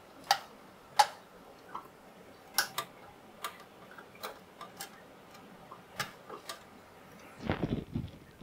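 Small model-kit parts handled and pressed into place on a model car body: a dozen or so sharp, irregularly spaced clicks and taps, the loudest about a second in. A short stretch of denser rustling and knocking follows near the end.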